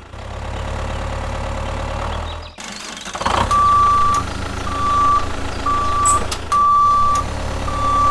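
A low steady hum cuts out about two and a half seconds in. About a second later a high electronic beep starts repeating about once a second, like a reversing alarm.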